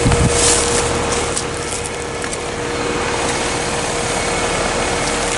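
2020 Heil 1.5-ton heat pump outdoor unit running steadily in heat mode shortly after start-up: a constant hum with a steady tone over the rush of the fan's airflow. A brief low thump right at the start.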